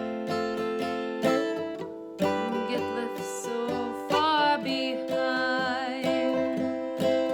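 Acoustic folk song: a plucked string instrument plays chords, with a wavering melody line over it about halfway through.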